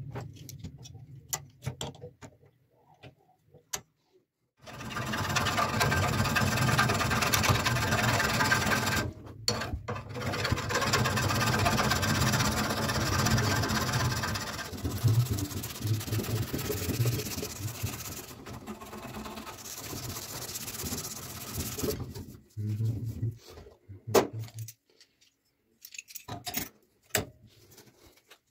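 Rapid back-and-forth rasping strokes of a hand-held abrasive tool along the steel cleaver blade, which is clamped in a vise. The strokes start about four seconds in and are loudest for the first ten seconds or so. They grow lighter and stop a few seconds before the end, followed by a few clicks and taps of tools being handled.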